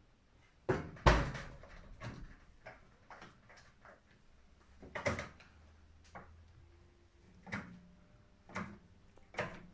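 Oven door of a freestanding electric cooker shutting with two sharp knocks about a second in, followed by scattered handling knocks and one louder knock around the middle. Near the end come three clicks as the cooker's control knobs are turned.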